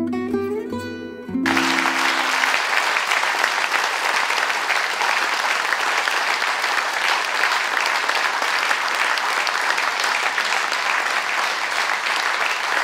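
The film's closing music ends on a held chord about a second and a half in, then a large audience applauds steadily.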